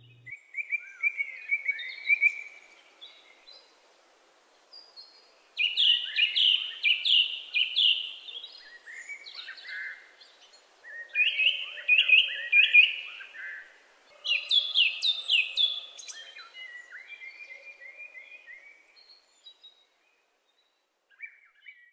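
Birdsong: bright chirps and quick trilled phrases in bursts of a few seconds with short pauses between, tailing off near the end.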